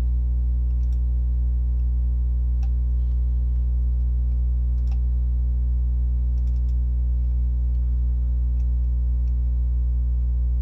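Steady low electrical hum on the recording, with scattered sharp computer mouse clicks, a dozen or so spread irregularly.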